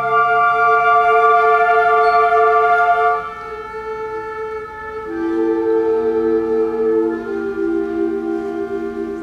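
Symphonic wind band playing slow, held chords. The chord drops softer about three seconds in, and new lower held notes come in about two seconds later.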